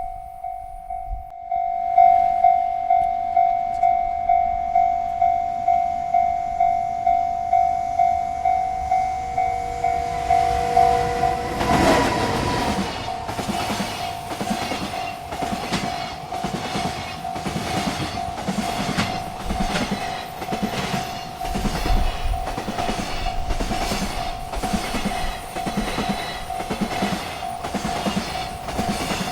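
Railroad crossing bell ringing about twice a second. About twelve seconds in, a freight train reaches the crossing and its cars pass with a rumble and a steady clickety-clack of wheels over rail joints, the bell still ringing underneath.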